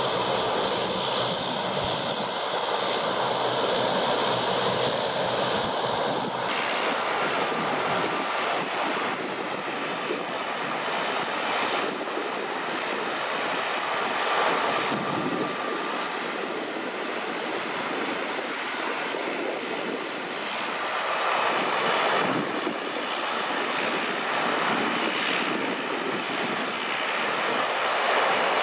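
Airbus A320neo turbofan engines at low taxi power as the airliner taxis by: a steady rushing jet noise, with a high whine over it that stops suddenly about six seconds in.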